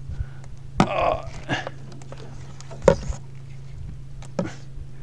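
Handling noise as a fish finder's transducer and cable are pulled in over a boat's side: a few sharp knocks, the loudest about three seconds in, and a short grunt-like vocal noise about a second in, over a steady low hum.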